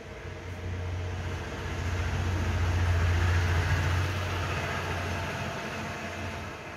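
A passing vehicle: a low hum with a rushing noise that swells to a peak about three seconds in, then fades away.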